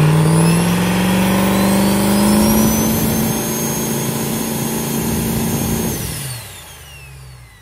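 1500-horsepower diesel race truck engine revved hard: its pitch climbs and holds with a high turbo whistle riding on it, then about six seconds in it is let off and engine and whistle wind down.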